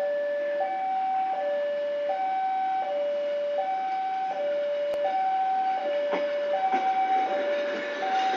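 Railway level-crossing alarm sounding a steady two-tone warning, a higher note and a lower note alternating, each held about three-quarters of a second. From about six seconds in, a passenger train's coaches roll past, shunted backward, with a few sharp knocks of the wheels over the rail joints.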